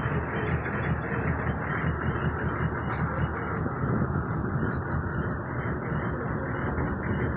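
Chevy 3500 dually's 6.5 turbo diesel V8 idling steadily.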